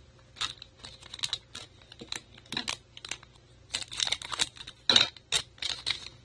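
Foil wrapper of a baseball card pack crinkling and crackling in the hand: a run of sharp, irregular crackles, loudest about five seconds in.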